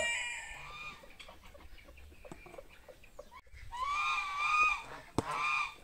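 Farmyard fowl calling: a rooster's crow trails off at the start, then soft scattered clucks. About four seconds in comes a drawn-out call of about a second, and a shorter one near the end.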